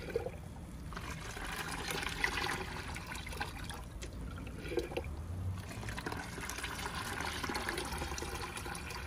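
Compost tea being poured from a jar into a bucket of water, splashing and trickling, with the jar dipped and sloshed in the bucket between pours. The tea is being diluted for watering plants.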